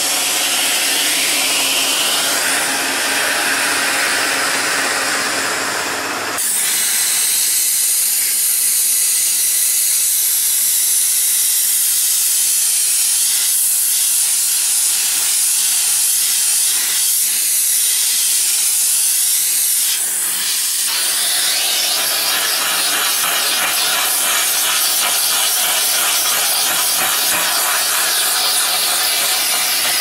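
Bissell Slim Steam (BA-BS2233S) steam cleaner jetting steam from its nozzle in a steady, loud hiss. The hiss shifts abruptly in tone about six seconds in and again about twenty seconds in.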